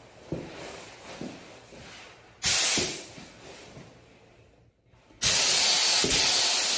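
Gravity-feed HVLP spray gun hissing as it sprays clear coat: one short burst about two and a half seconds in that fades away, then a loud steady hiss of continuous spraying from about five seconds in.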